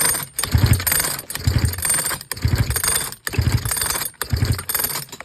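Recoil starter of a Sachs Dolmar 112 chainsaw pulled over and over, about one pull a second. The engine turns over without firing against a compression gauge, which shows very low compression, about 20 psi.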